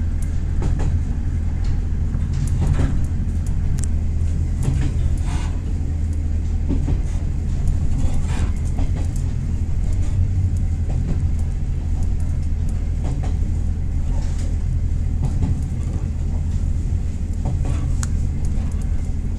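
KiHa 40 diesel railcar running along the line: a steady low diesel drone, with scattered clicks from the wheels on the rails.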